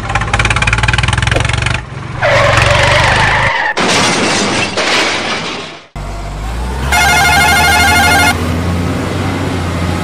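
Dubbed truck and tractor engine sound effects running, broken by a hissing burst and a rushing noise. A repeating electronic horn jingle plays for about a second over the engine later on.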